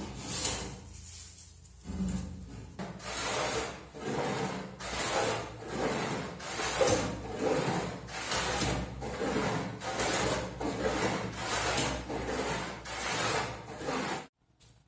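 Hand plane shaving a softwood table top in quick, short strokes, about one and a half a second, each a dry scraping swish. The strokes stop abruptly just before the end.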